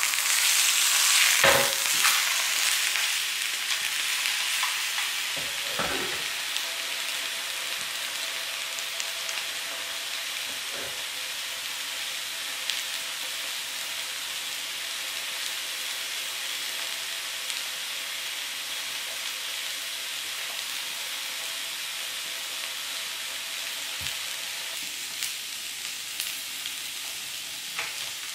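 Rolled dashi omelette sizzling in a square tamagoyaki pan, loudest in the first couple of seconds, then settling to a steady, quieter sizzle. A few light knocks, as of chopsticks against the pan, come through now and then.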